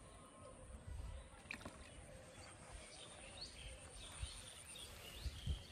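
Quiet pondside ambience: scattered short bird chirps over a low rumble of wind on the microphone, with one louder low thump near the end.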